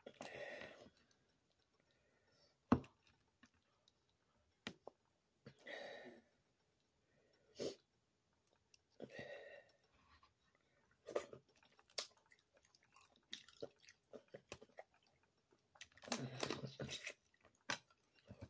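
Boiled crawfish being peeled and eaten by hand: short bursts of close-up chewing and smacking, broken by sharp snaps of shells cracking.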